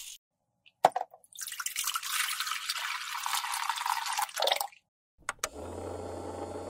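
Water poured from above into the plastic tank of an ultrasonic cleaner, splashing for about three and a half seconds. A couple of clicks follow, and the cleaner starts up with a steady low hum and hiss.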